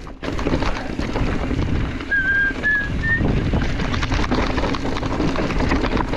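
Mountain bike riding on a dirt trail: steady wind and trail noise on the microphone. A couple of seconds in come three short whistle-like notes, each a little higher than the last.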